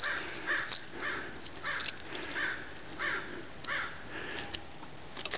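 A bird calling over and over in a steady series of short calls.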